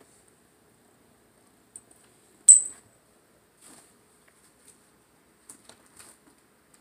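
Small metal bell or tag on a cat's collar jingling in a few light clinks as the cat moves, the loudest a single ringing clink about two and a half seconds in.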